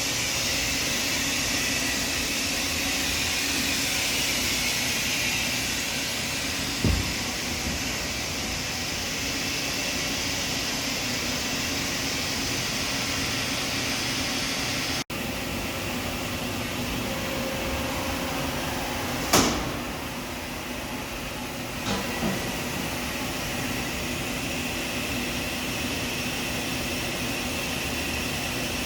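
Steady industrial background noise of a machine shop: an even hiss with a low hum, broken by a sharp knock about seven seconds in and two more about twenty seconds in.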